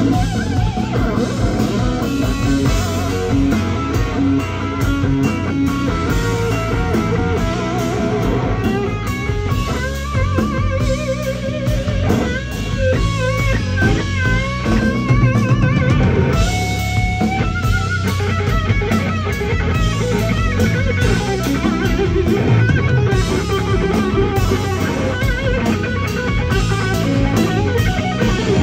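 Live rock band: electric guitar playing lead lines over drum kit and bass, with wavering, bent notes standing out about ten to seventeen seconds in.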